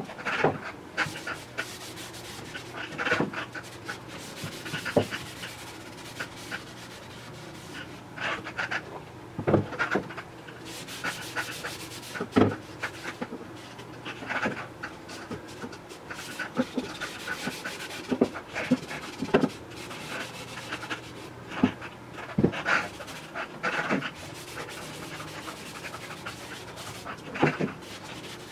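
A cloth rag rubbing finish onto wooden boards in irregular swishing strokes, with a few sharp knocks from the panels being handled.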